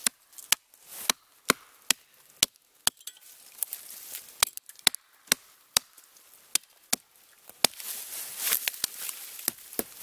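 A GRIP 1.25 lb fiberglass-handled camping hatchet chopping into the trunk of a small standing tree, sharp wooden chops at about two a second with a few short pauses.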